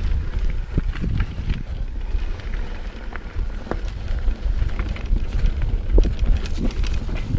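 Mountain bike riding down a rough trail: wind buffeting the microphone as a steady low rumble, with scattered clicks and rattles from the tyres and bike over the surface.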